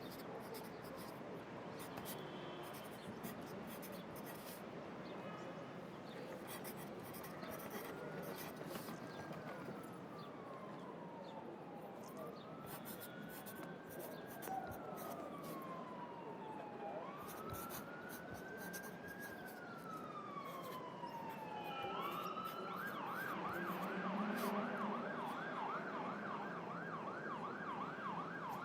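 Steady city traffic noise with an emergency-vehicle siren: slow rising-and-falling wails begin about a quarter of the way in and switch to a fast yelp about three-quarters of the way through. Pencil scratching on paper in short strokes is laid over it.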